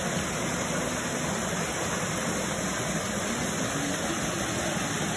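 Steady rushing of a creek running high after heavy rain.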